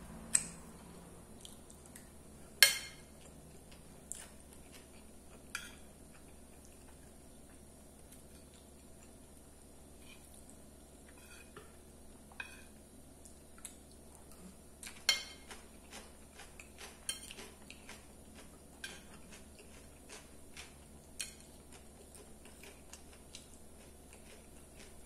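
Sparse clinks and scrapes of a metal fork against a plate, with quiet chewing in between. The sharpest clinks come about three seconds in and about fifteen seconds in, followed by a run of smaller taps.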